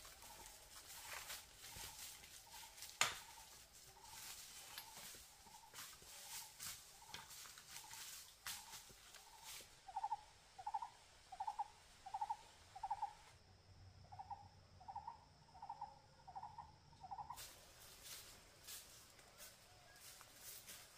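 An animal calling: a short, slightly rising note repeated about every half second, faint at first and louder in two runs from about ten seconds in, over scattered rustling and clicks, with one sharp snap about three seconds in.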